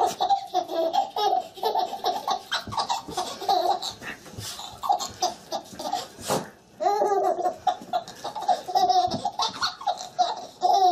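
A baby laughing in long runs of high-pitched giggles, with a brief break about two thirds of the way through before the laughing picks up again.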